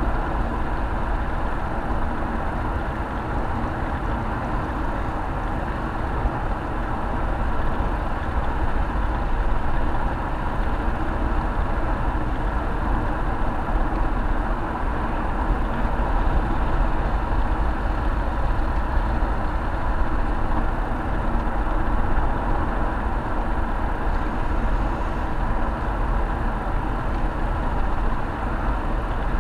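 Car driving steadily at open-road speed on a sealed country road, heard from inside the cabin: an even, unbroken mix of engine, tyre and wind noise.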